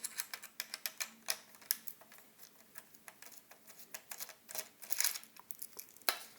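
Irregular small clicks and taps of plastic and metal parts being handled and worked loose while the button section of an electronic wind instrument is taken apart, with a sharper click about six seconds in.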